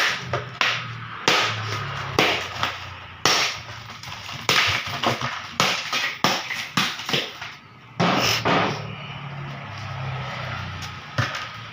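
A dozen or so sharp knocks and cracks at irregular intervals.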